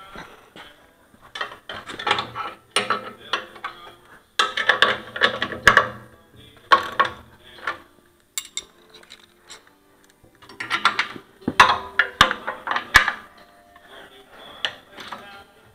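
Metal hand tools and chipper drive parts clinking and clattering in irregular bursts, with sharp knocks and brief metallic ringing, as wrenches are worked on the feed-roll drive.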